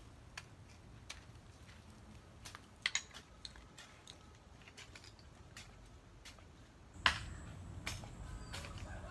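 Metal blade of a long-handled hoe chopping into dry earth, an irregular scattering of sharp strikes. About seven seconds in comes a louder strike, followed by a low rumble.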